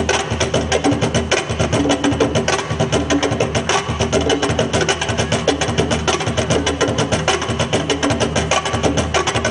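Lively Afro-Peruvian dance music driven by percussion, with a fast, dense beat of drum and wooden strikes.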